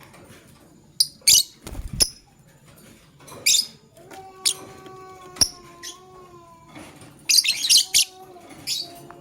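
Lovebirds chirping in short, sharp, high-pitched bursts, scattered at first, then a tight cluster about seven to eight seconds in. A few soft knocks come about two seconds in.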